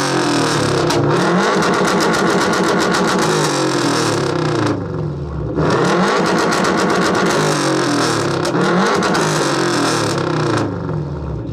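A Subaru flat-four (boxer) engine revved hard and held high through its exhaust for a sound-level reading. It is held high twice, dropping briefly about five seconds in, then falls off near the end.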